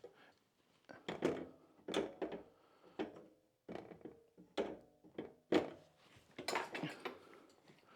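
Bike trailer parts, small metal and plastic pieces, knocking and clinking as they are handled and fitted by hand: a string of separate clacks, some with a brief metallic ring.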